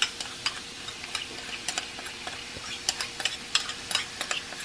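Shrimp frying in oil in a hot pan and being stirred with a metal spatula: a low sizzle under frequent irregular sharp crackles and pops.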